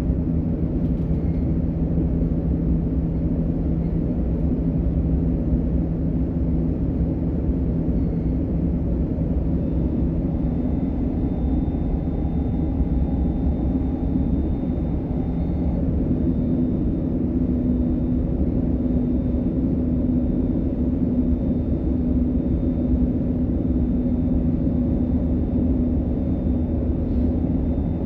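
DB Class 425 electric multiple unit running between stations, heard from inside the car: a steady low rumble of wheels and running gear with a humming drive tone that steps up in pitch about halfway through.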